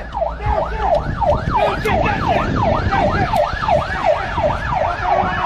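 Police car siren sounding in a fast yelp, about three rising-and-falling sweeps a second.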